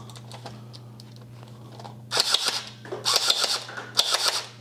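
Glock-style electric gel blaster pistol firing on full auto: three short bursts of rapid clicking, starting about two seconds in, over a steady low hum.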